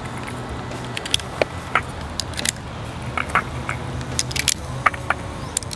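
Irregular small metallic clicks and clinks from handling a pistol and its cartridges, over a steady low hum.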